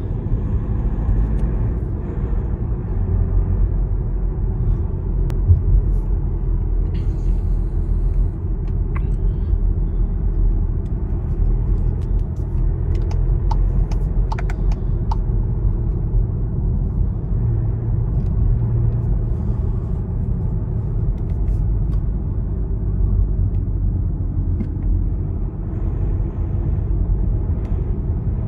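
Steady low rumble of engine and road noise inside a Škoda's cabin, cruising at about 50 km/h, with a few faint clicks about halfway through.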